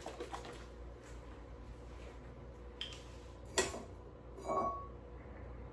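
Quiet kitchen dishware handling: a few light stirring ticks at the start, then a sharp clink about three and a half seconds in and a short ringing clink about a second later.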